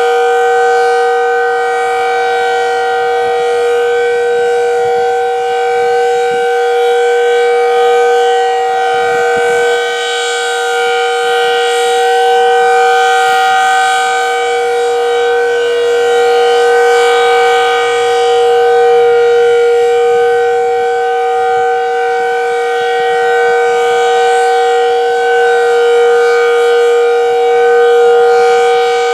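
Decot Red Arrow Model 12 outdoor warning siren sounding the steady Alert signal: two fixed pitches held together without rising or falling, swelling and easing slightly in loudness.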